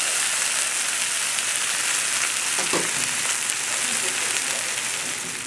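Olive oil sizzling steadily around a butterflied rainbow trout in a hot cast iron pan, a dense crackling hiss that eases slightly near the end.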